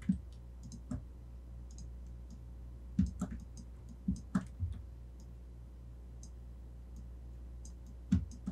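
Computer mouse and keyboard clicks from working at a desk: about ten short, sharp clicks in small clusters, some close together, over a steady low electrical hum.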